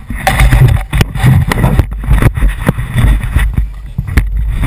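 Wind buffeting a body-worn action camera's microphone as a low rumble, with irregular sharp knocks and rustling from the wearer's gear as he moves.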